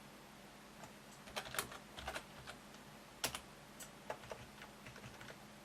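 Scattered faint clicks of a computer keyboard and mouse, irregular, with one louder click about three seconds in.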